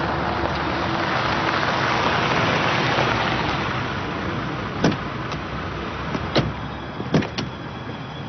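A car pulls up and stops: a steady rush of engine and tyre noise that fades over the first few seconds. Then come several sharp clicks and knocks as its door is unlatched and opened.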